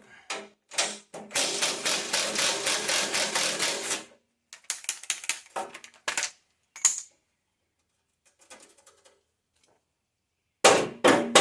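Rapid metallic clicking for about three seconds as a hand tool works a rusted fender-pan bolt loose, then scattered clicks and, near the end, a run of loud sharp metal knocks.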